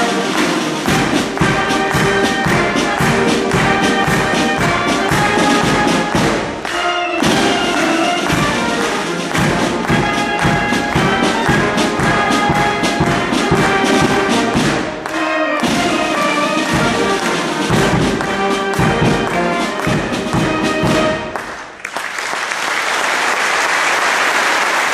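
British military band of brass and drums playing a march, a bass drum keeping a steady beat. The music ends about 21 seconds in and the audience breaks into applause.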